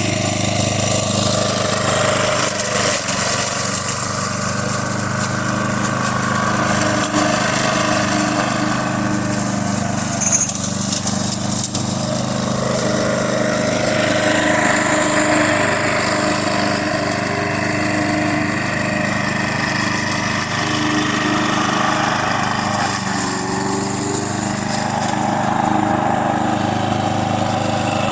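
Walk-behind gas lawn mower running steadily while mowing grass into its rear catcher bag.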